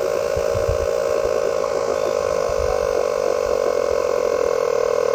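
Small 12-volt air compressor built into a Vtoman X7 jump pack running steadily with an even hum while it inflates a small trailer tire from low pressure. The unit is the faulty one that smokes under this load.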